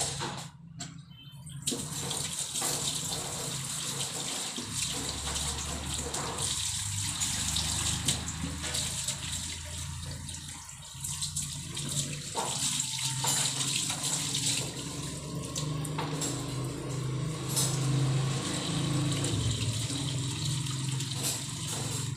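Water running and splashing steadily, as from an open tap, with a low hum underneath.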